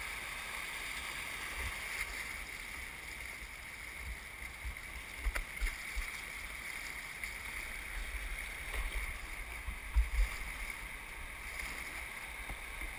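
Steady rush of river current around a canoe, with scattered low thumps, the strongest about ten seconds in.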